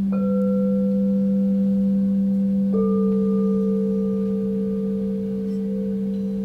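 Gemstone alchemy crystal singing bowls ringing in long, pure, overlapping tones: a low tone holds throughout, a higher bowl is struck and joins right at the start, and another comes in about two and a half seconds in.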